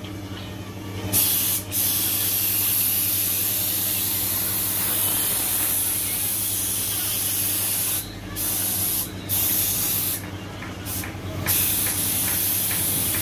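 Paint spray gun hissing steadily as it sprays, cut off briefly about eight seconds in and twice more a little after ten seconds as the trigger is let go; a steady low hum runs underneath.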